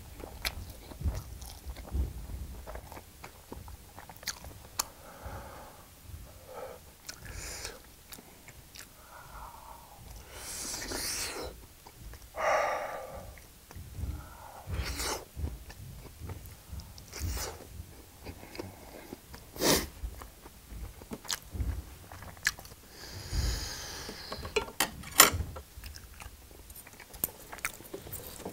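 A person biting and chewing a whole pan-fried block of Spam, giving scattered wet mouth clicks and chewing noises, with a few louder breaths.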